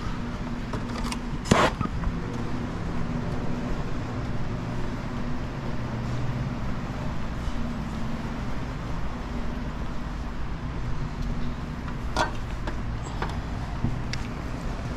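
Steady low hum of a large shop's background machinery, with a sharp knock about a second and a half in and a fainter click near the end.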